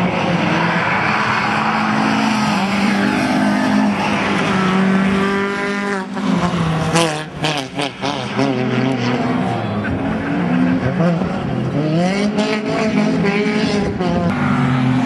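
MG ZR rally car's high-revving Honda B16 1.6-litre four-cylinder engine at full throttle, rising in pitch through the gears. About seven seconds in the pitch drops away sharply as it slows for a tight chicane, with a few sharp cracks, and near the end the engine climbs hard again.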